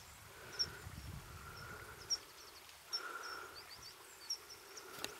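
Faint outdoor ambience: short high bird chirps, four or five of them spread about a second apart, over a low wind rumble.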